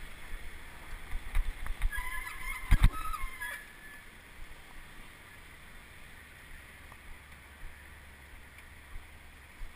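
Wind buffeting the microphone of a camera on a moving bicycle, with road rumble and heavy jolts about three seconds in. A short high squeal of several tones runs through those jolts. From about four seconds the rumble falls away to a quiet, steady background with a few small knocks.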